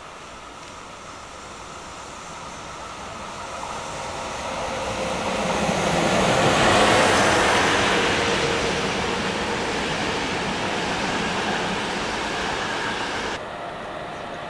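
ÖBB Class 4010 electric multiple unit approaching and passing close by. Its running noise builds steadily to a peak about halfway, then stays loud. Near the end the sound cuts abruptly to quieter, steady train noise.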